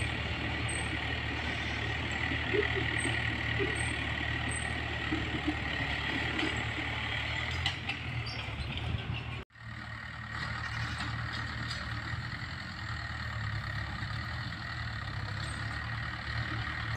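Diesel farm tractor engine running steadily under load as it tills a field, heard from a distance. The sound drops out abruptly about halfway where the recording cuts, then carries on.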